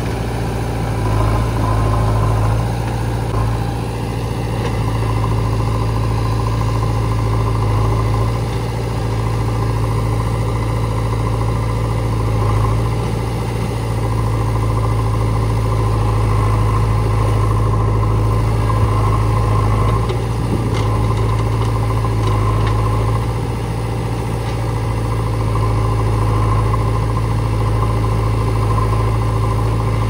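Diesel engines of a JCB 3DX backhoe loader and a tractor running: a steady low hum, with the revs rising and easing off a little every few seconds as the loader works.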